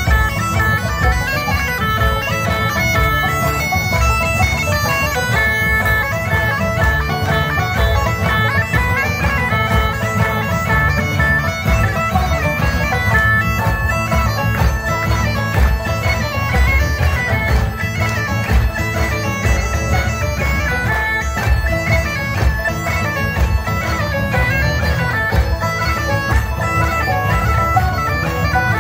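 Bagpipes playing a tune, the melody notes moving over a steady drone.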